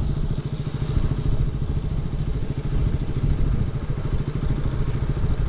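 Motorcycle engine running steadily as the bike is ridden along at an even, low speed, with a fast, even throb.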